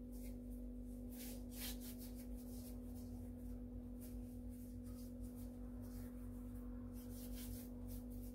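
Faint soft rubbing and rustling every second or so, from hands working and wiping off sticky flatbread dough, over a steady electrical hum.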